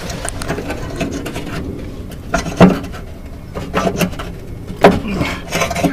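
Screwdriver scraping and prying against bent-up sheet metal, with scattered scrapes and two sharper knocks, one about two and a half seconds in and one near the end.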